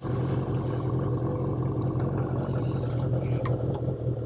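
Motorcycle engine running steadily with an even hum, with one brief click about three and a half seconds in.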